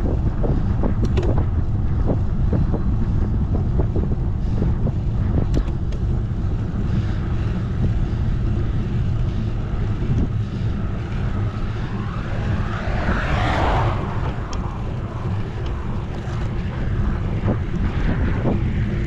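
Wind buffeting the microphone of a camera on a moving bicycle, a steady low rumble. About two-thirds of the way through, a louder rushing swell rises and falls away.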